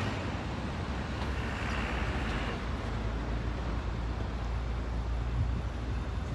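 Road traffic: cars and a minibus going by on a city street, a steady low rumble of engines and tyres.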